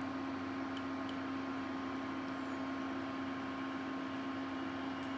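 Steady low electrical hum with a fainter high tone over it, unchanging throughout, with a few tiny faint ticks.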